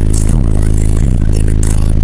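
Very loud bass music from two HDC4 18-inch subwoofers in a sixth-order enclosure, playing inside the truck cab. Deep, sustained bass notes shift in pitch every half second or so, with rattling and clattering on top.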